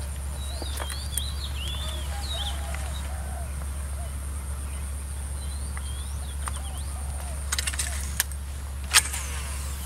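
Small birds chirping in short, twisting high calls over a steady low hum. A few sharp clicks come near the end, the loudest about nine seconds in.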